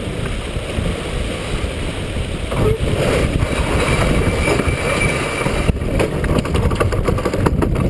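Wind buffeting the microphone and water rushing along the hull of a J/124 sailboat heeled under sail, a steady low rumble. About three seconds in, the rush of water grows louder and brighter for a few seconds; a few sharp clicks come near the end.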